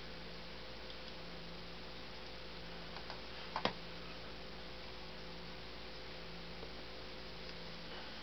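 Steady low electrical hum over a background hiss, with two short faint clicks about three and a half seconds in.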